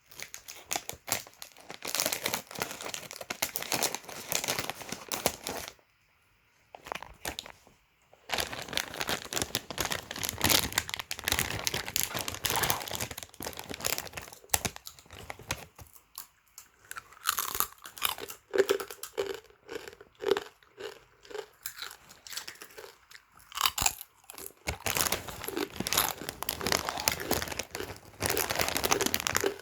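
Crispy pork crackling (chicharon) crunching as it is bitten and chewed, in dense runs of sharp crackles, with a pause of about two seconds a quarter of the way through.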